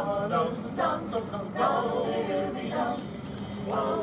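Mixed chorus of men and women singing in chords, in short phrases with brief breaks, dipping softer around three seconds in, then a held chord near the end.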